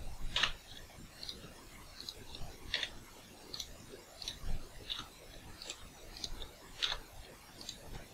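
Computer mouse buttons and keyboard keys clicking: about a dozen short, light clicks at an uneven pace as right-clicks, Shift presses and the F key are used in turn.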